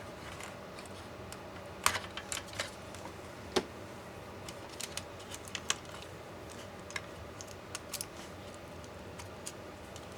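Irregular small clicks and taps of hand tools and plastic and metal parts being handled while taking apart an MSI GT72VR laptop. The sharpest clicks come about two seconds in and again a little after three and a half seconds.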